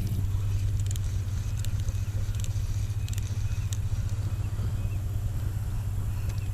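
Steady low engine hum with scattered light clicks over it.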